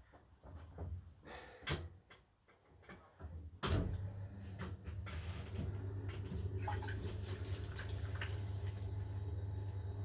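A few light knocks and handling clicks, then about three and a half seconds in an electric potter's wheel motor switches on and runs with a steady low hum.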